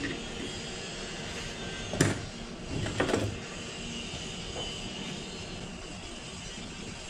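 A steady background drone, with two short knocks about two and three seconds in from a plastic glue tub being handled while glue is scooped out with a stick.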